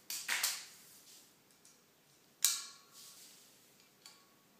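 Sharp clicks and clinks of a wire shelving unit's metal pole and plastic sleeve clips being handled during assembly: a short rattle of clicks near the start, one sharp click with a brief ring about halfway through, and a faint tick near the end.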